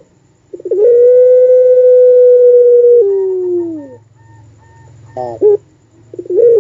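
Puter pelung, a long-voiced breed of Barbary dove, giving its drawn-out, howl-like coo. A few short rising notes lead into one long steady note of about two seconds, which slides down in pitch at the end. A short stuttering note follows, and the next long call begins near the end.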